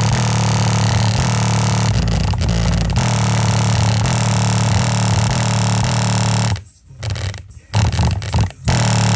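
Bass-heavy rap music blasted through home stereo speakers whose woofer surrounds are torn, coming out as a distorted, buzzing drone heavy in the low bass. Near the end it drops out and comes back several times in quick succession.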